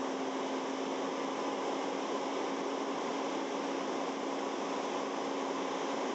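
Fire apparatus engine and pump running steadily under load: a constant hum over an even rushing noise.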